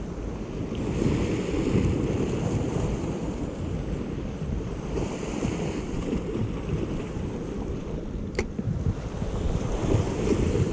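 Wind buffeting the microphone over the wash of sea waves breaking against a rocky shore, with surges of surf hiss. A single sharp click sounds about eight seconds in.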